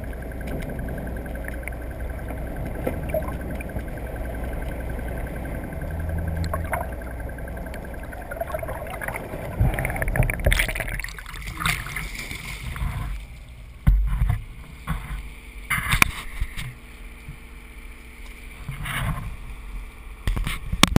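Muffled water noise and a low steady rumble from the boat, heard through a camera held under water. From about ten seconds in, irregular loud splashes and sloshing as the camera comes up through the surface.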